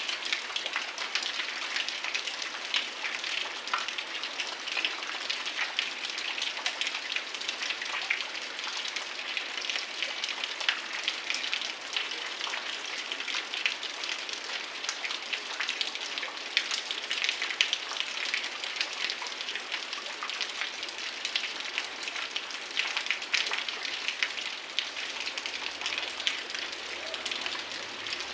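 Heavy rain falling steadily, a dense patter of drops hitting surfaces with many sharp ticks.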